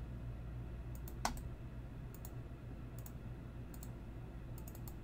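Faint clicks of a computer mouse and keyboard, mostly in quick pairs about once a second, one louder than the rest a little over a second in, over a steady low hum.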